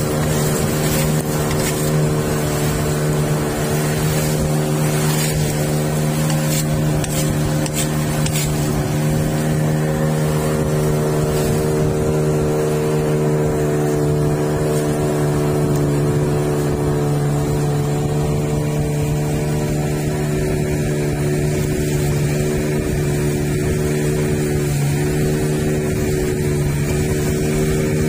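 Outboard motor of a wooden river longboat running steadily at cruising speed, a constant engine drone with water rushing along the hull.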